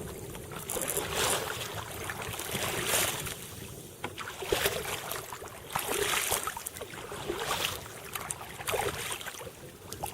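Heavy wind buffeting the microphone over choppy water lapping and splashing against a kayak, in irregular surges every second or two.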